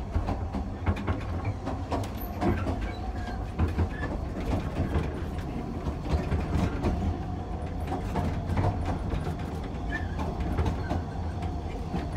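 Ffestiniog Railway narrow-gauge carriage in motion, heard from inside: a steady low rumble with frequent irregular clicks and rattles.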